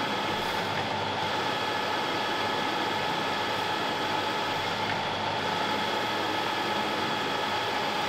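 Harrison M300 metal lathe running while turning down an EN24T steel bar: a steady whine with several high, even tones over the constant noise of the cut.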